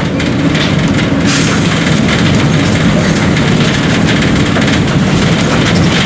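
Volkswagen 17.230 OD bus's diesel engine running steadily, a dense continuous low drone.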